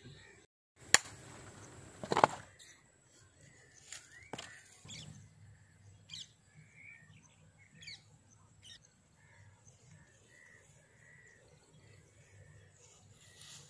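Birds chirping and calling at scattered intervals over a faint open-air background. About a second in there is a sharp click and a short rush of noise, ending in a loud knock.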